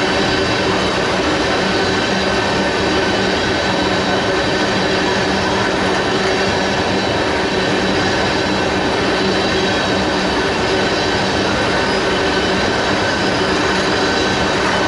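Freight train rolling past, its wheels and cars giving a steady rumble with a constant metallic wheel squeal.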